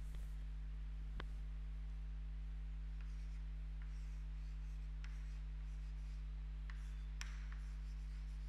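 Chalk writing on a blackboard: faint scratching strokes and a few sharp taps of the chalk, over a steady low electrical hum.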